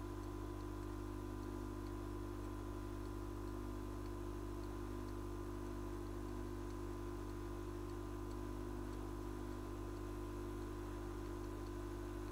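Steady electrical hum with several fixed tones over a faint hiss, unchanging throughout, with very faint regular ticking in the background.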